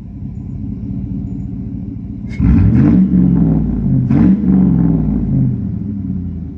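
Chevrolet 4.8-liter LS V8 truck engine idling with a deep exhaust note through Cherry Bomb mufflers and 5-inch tips. It is revved twice, sharply about two and a half seconds in and again about four seconds in, and the revs fall back toward idle after each.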